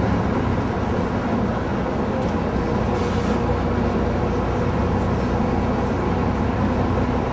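Steady low rumble of a tour bus driving at speed, heard from inside the cabin.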